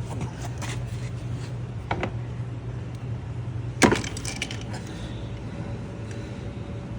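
Vice grips being worked on a stuck oil filter: several light metal clicks and taps, then one loud sharp click about four seconds in.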